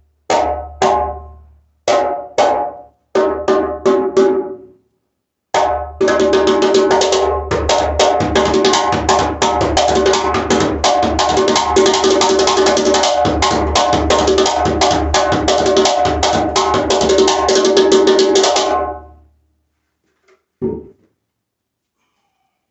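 Djembe with a water buffalo calfskin head played by hand: a few separate strokes ring out, then a fast, continuous run of strokes lasts about thirteen seconds and stops abruptly. One last single stroke follows near the end.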